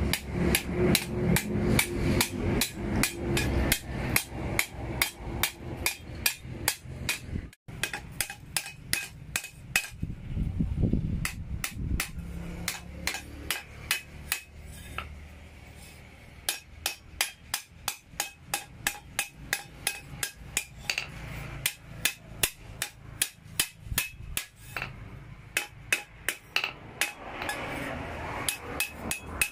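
Hand hammer striking a steel hoe blade on a block anvil, hammering out the blade in a steady run of sharp ringing blows, about two to three a second, with a brief break about a quarter of the way in.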